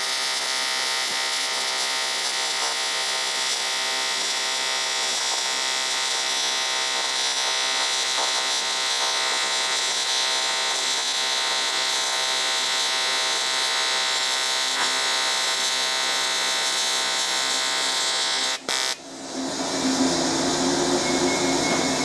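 AC TIG welding arc on aluminum, a steady buzz with hiss laid over a rough hum, held at an even level while the overhead bead is run. The arc cuts off suddenly near the end, and a duller, lower noise follows.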